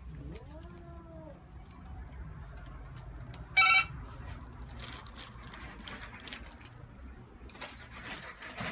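A cat meowing once, a call that rises and then falls in pitch, then about three and a half seconds in a short, loud, high pitched call. Rustling and handling noise follows near the end.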